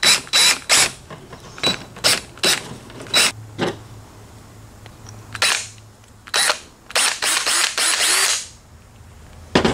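Cordless drill with a 5/32-inch bit drilling a small hole through a piece of PVC pipe, run in a quick series of short trigger bursts with a thin motor whine, then a few more spaced bursts and a longer run of about a second near the end.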